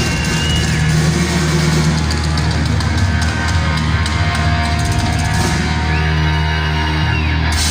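Heavy metal band playing live and loud: distorted guitars and bass holding low sustained notes under drums and crashing cymbals.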